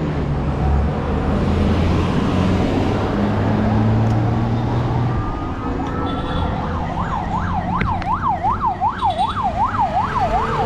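Road traffic and a running vehicle engine, then about six seconds in an emergency vehicle's siren starts up, sweeping quickly up and down about two and a half times a second.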